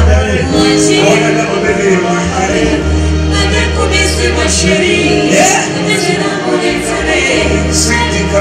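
Live band music, with electric guitar, keyboard and drums playing under a man singing into a microphone through a PA. Deep held bass notes drop out for a moment about five seconds in.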